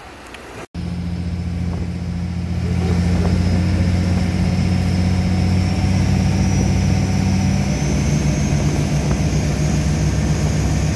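A faint wash of waves for a moment, then, after an abrupt cut, a boat's engine running under way: a loud, steady low drone that builds about two seconds in and changes pitch slightly near the end, with a thin high whine riding above it.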